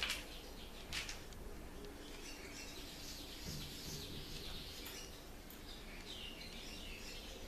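Small birds chirping and twittering in the background, with two sharp clicks, one at the start and one about a second in.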